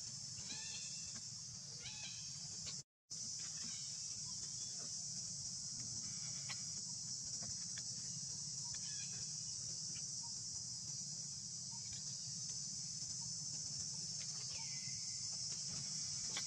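Steady high-pitched chorus of insects, with a few faint short chirps in the first two seconds. The sound drops out completely for a moment about three seconds in.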